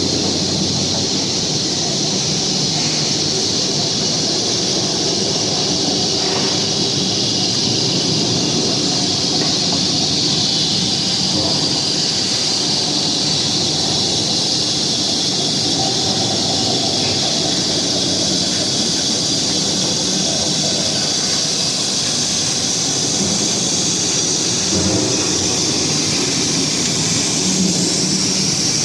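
Tube roll forming line with laser welding running continuously: a steady mechanical drone under a strong, even hiss.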